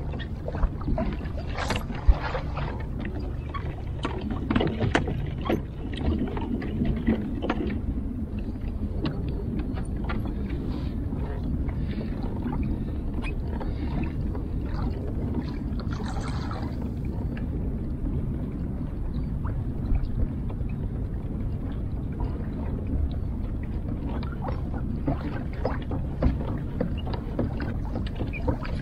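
Water lapping and slapping against a kayak's hull as it moves through choppy water, over a steady low rumble, with scattered small splashes and knocks.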